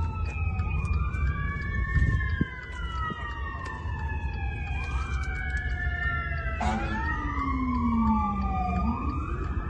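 Emergency vehicle sirens wailing, two or more overlapping, each slowly falling in pitch and then sweeping back up, over a low rumble.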